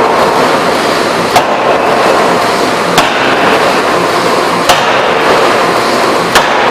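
Electro-hydraulic open die forging hammer striking four times, one sharp blow about every 1.7 seconds, over a loud steady noise.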